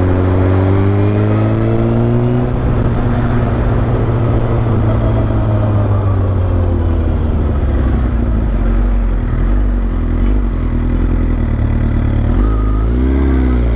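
Suzuki GSX-R 1000 K9 inline-four with an Akrapovic exhaust, heard while riding: its pitch climbs under acceleration over the first couple of seconds, then holds steady. Near the end it dips and climbs again.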